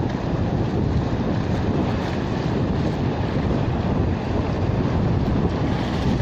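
Wind buffeting the microphone over a steady rush of ocean surf.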